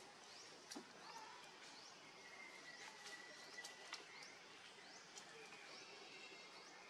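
Faint outdoor ambience: short rising chirps repeating about twice a second over a thin, steady high tone, with a few soft ticks.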